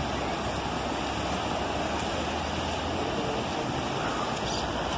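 Swollen river running fast over rocky rapids: a steady rush of whitewater.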